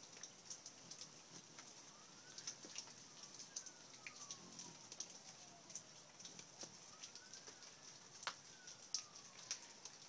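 A person whistles to call hummingbirds to a feeder: two long, slow whistled notes, each rising and then sliding down in pitch, the second beginning about halfway through. Scattered sharp ticks and a steady high hiss sound faintly throughout.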